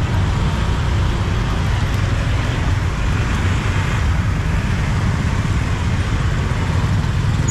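Steady street traffic noise, with motor scooters and cars running and passing in a continuous wash.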